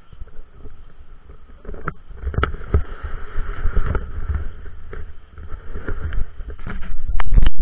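Low rumbling wind and rubbing noise on a body-worn action camera's microphone, with scattered knocks and scrapes as skis slide over packed snow. It swells from about two seconds in and is loudest, close to distorting, just before the end.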